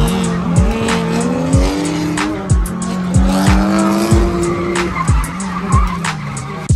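Drift cars running side by side at high revs: engine notes rising and falling and tyres squealing. Music with a deep bass beat, thumping about once a second, plays over it.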